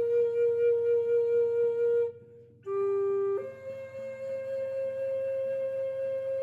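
Flute playing slow, long held notes: one note sustained for about two seconds with a gently pulsing swell, a short pause for breath, a brief lower note, then a slightly higher note held steadily to the end.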